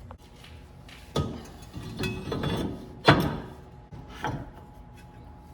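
Knocks, clatter and scraping from hand work on a car's front brake assembly. The loudest sharp knock comes about three seconds in.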